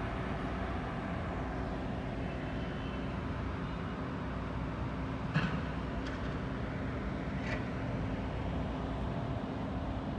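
Steady engine and machinery rumble of a construction site, with a low steady hum underneath. Two sharp knocks sound, about five seconds in and again about two seconds later; the first is the louder.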